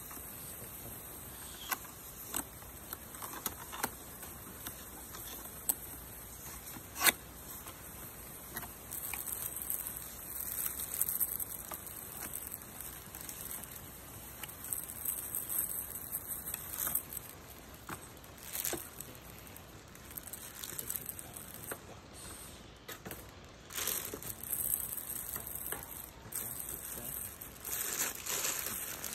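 Unboxing handling of a cardboard box and a helmet wrapped in a plastic bag: scattered taps and clicks, the sharpest about seven seconds in, with stretches of plastic rustling and crinkling. A steady high hiss lies underneath.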